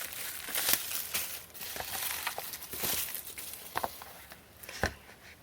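Packaging of an album set being handled and opened: crinkling and rustling with several sharp clicks and taps, growing fainter toward the end.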